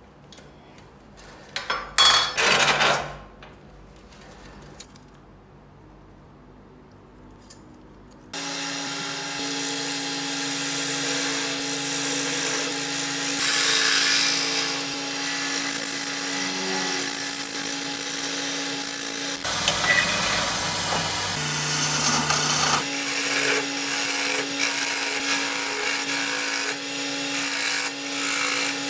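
A brief metallic rattle of a chuck key tightening a four-jaw lathe chuck, then a wood lathe starts running steadily with a hum while a turning tool scrapes and cuts the spinning end grain of a wooden blank, hollowing it out as shavings fly.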